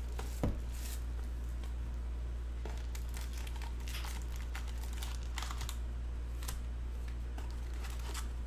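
Crinkling and light clicking from cellophane-wrapped trading-card boxes and foil card packs being handled and pulled out, over a steady low hum.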